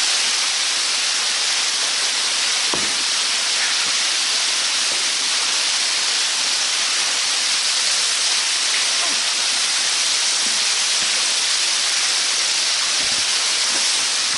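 Underground waterfall inside a cave, a loud steady rush of falling water.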